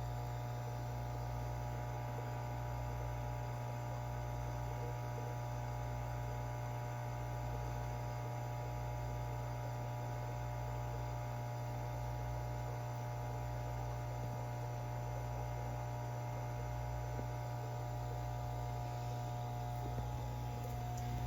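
Steady low electrical hum with no change throughout.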